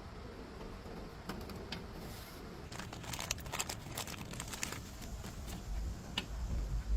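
Scattered light clicks and rattles of handling, busiest in the middle, with a low rumble coming in near the end.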